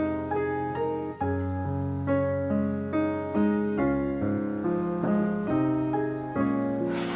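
Background piano music: slow single notes and chords over held low notes.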